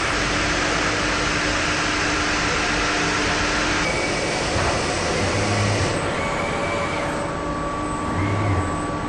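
Steady machinery noise of an automated electric-motor stator production line: a dense hiss with a faint steady hum underneath and a few short low hums. It turns duller about six seconds in.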